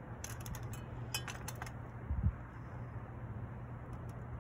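A long-necked utility lighter clicking several times at a candle wick, with a single low thump about two seconds in.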